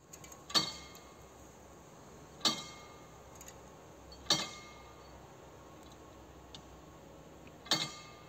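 Level crossing warning bell striking four times, each stroke ringing out and dying away, with uneven gaps of about two to three seconds. It signals that the crossing barriers are about to lower for an approaching train.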